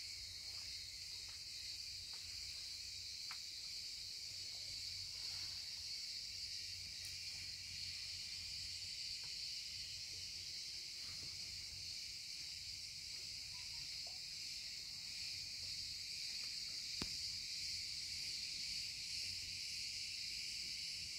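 Steady, high-pitched drone of an insect chorus, with a couple of faint clicks.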